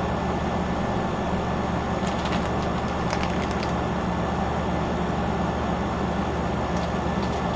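Steady low machine hum with an even background hiss, and a few faint light clicks in the middle.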